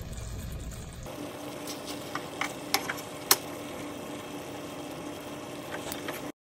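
A steady low hum with a handful of light, sharp clicks of a utensil against a stainless steel pan as the chicken adobo pieces are moved around, most of them about two to three seconds in and two more near the end. The sound cuts off abruptly just before the end.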